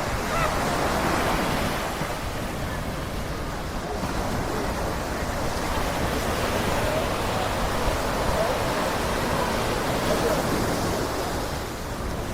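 Small waves washing onto a sandy beach in a steady wash of surf, with faint voices of people mixed in.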